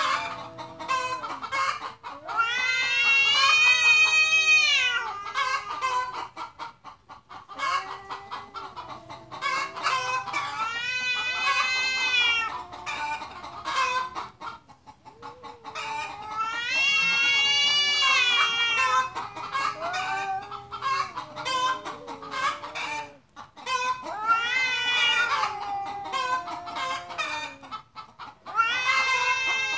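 Domestic cats in a fighting standoff yowling at each other: long, wavering, baby-like howls that rise and fall, several drawn-out calls with short pauses between. This is an aggressive warning before a cat fight.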